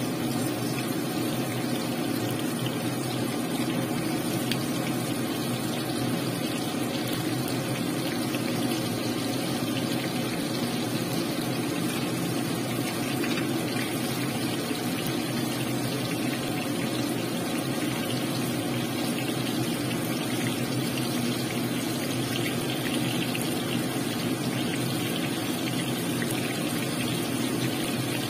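Battered chicken pieces deep-frying in a pan of hot oil: a steady sizzle and bubbling, over a steady low hum.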